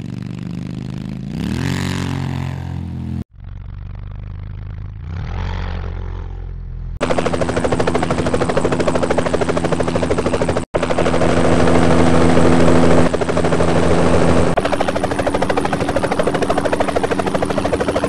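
Edited sound-effect clips: a motorcycle engine revving, its pitch rising then falling, in a processed, distorted version, then another altered version that is more muffled. About seven seconds in it cuts to a louder helicopter with its rotor chopping fast and steadily, followed by two further altered versions of the same helicopter sound.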